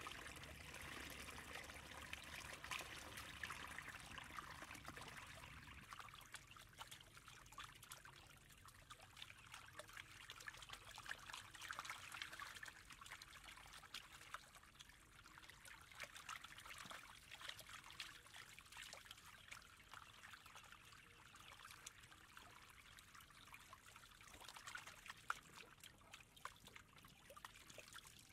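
Faint trickling of muddy water running along a shallow dug channel, with many small irregular splashes.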